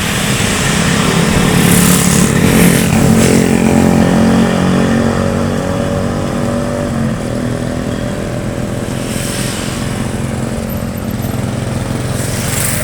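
Diesel engines of tour buses running and pulling away, loudest a few seconds in and then easing off, with a few brief hisses.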